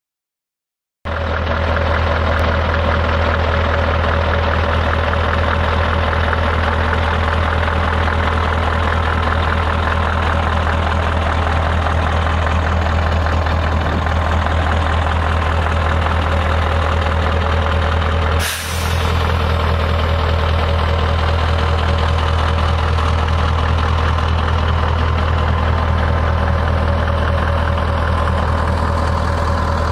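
Scania R144G truck's 14-litre V8 diesel idling steadily with a deep, even hum, starting about a second in. It breaks off for a split second with a click about two-thirds of the way through, then carries on the same.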